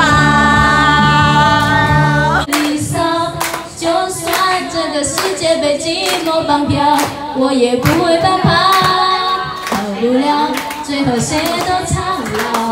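A woman sings karaoke into a microphone over a backing track, with people clapping along in time. It opens on one long held note that cuts off about two and a half seconds in.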